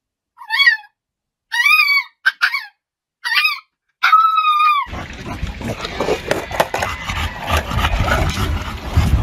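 A small white dog giving a string of six short, high-pitched whining calls with silences between them; the last is longer and drawn out. About five seconds in, this gives way to the steady rumble of skateboard wheels rolling on asphalt.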